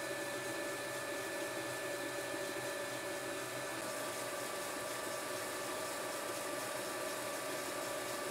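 Myford lathe running steadily with its spindle turning at about 330 rpm: an even motor and belt-drive hum with a few faint steady tones over it.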